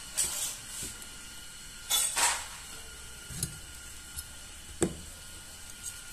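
Pin punch and small parts clicking and tapping against a Jericho 941 FB pistol frame during disassembly: a scattering of short, sharp clicks, the loudest pair about two seconds in and another near five seconds.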